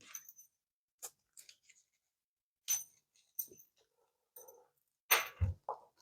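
Scattered handling noises from a brass catcher's frame and mesh bag being worked by hand: light clicks and rustles, with a louder knock and thump about five seconds in.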